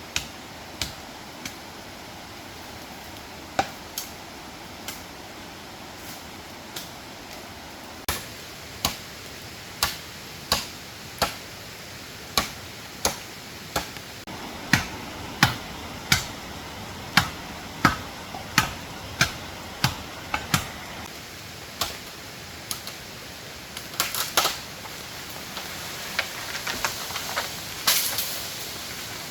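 Repeated sharp strikes of a hand tool on wood or bamboo, irregular at first and then about one or two a second, with a brief clatter twice near the end.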